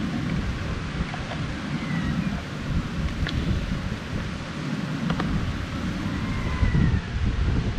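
Wind buffeting the microphone: a steady, gusting low rumble. A few faint high chirps and light clicks sound through it.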